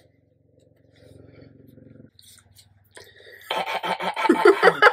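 Laughter breaking out about three and a half seconds in, in quick choppy pulses, preceded by a faint low hum.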